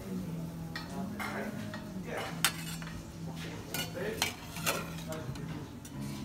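Stainless-steel slotted skimmer scraping and clinking against steel pots as boiled carrots and potatoes are lifted out of the cooking water, with several sharp metal knocks, the loudest about two and a half seconds in. A steady low hum runs underneath.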